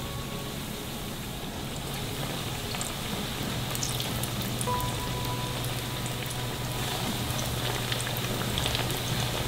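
Arepas de coco (coconut-milk batter rounds) frying in hot oil, at about 350°F, in a nonstick pan: a steady sizzle with small crackles.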